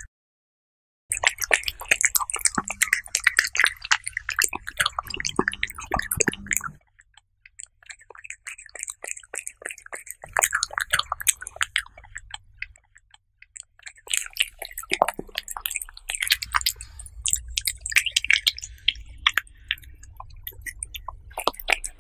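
Close-miked cat chewing and licking soft minced chicken and egg: a fast run of wet smacking and clicking mouth sounds, broken by a few brief pauses.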